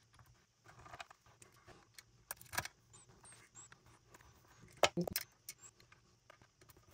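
Small clicks, ticks and scrapes of a hand screwdriver working the screws of a portable speaker's driver frame into its plastic housing. There is a sharper click about two and a half seconds in and the loudest knocks about five seconds in.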